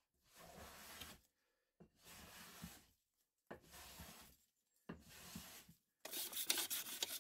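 Metal bench plane taking shavings off glued-up pine panels to level them: four long, even strokes about a second each, then quicker, louder strokes near the end.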